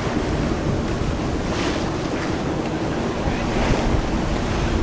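Wind buffeting the microphone over the steady rush of water along the hull of a sailing yacht under way.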